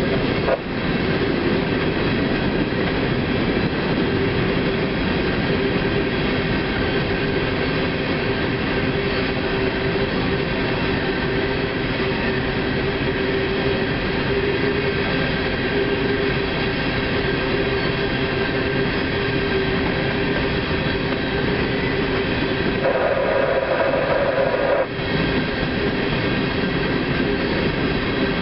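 Freight train cars rolling past with a steady rumble and rattle of wheels on rail. A steady tone runs underneath, and a louder, higher squeal joins for about two seconds near the end, then cuts off suddenly.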